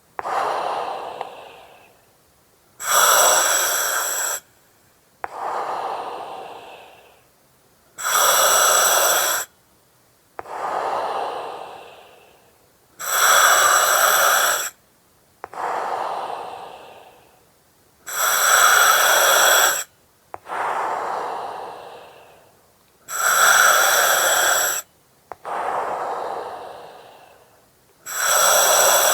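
Slow, regular breathing through an oxygen mask, a breath about every five seconds. Each breath is a loud hiss from the mask's regulator with a whistling edge, cut off sharply, then a softer breath that fades out.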